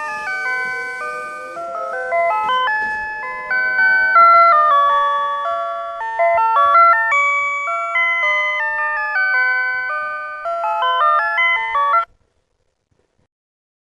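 PATLITE electronic annunciator on a Tobu Railway platform playing its signal-clear melody, a run of clean stepped electronic tones that tells the crew of a one-man train the departure signal has cleared. It cuts off suddenly about twelve seconds in.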